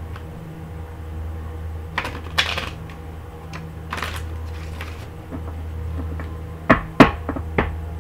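Scattered sharp clacks and taps of a tarot deck being handled and shuffled on a tabletop, the loudest two close together near the end, over a steady low hum.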